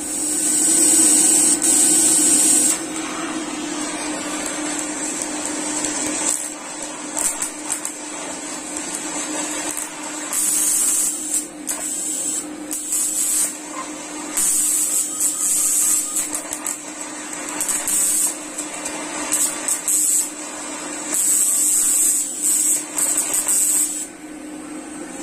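TIG welding arc from a Caldweld TIG 250 GP welder, hissing and buzzing as a bead is run on steel plate, over a steady hum. The hiss grows louder in stretches of a second or two, once right at the start and repeatedly in the second half.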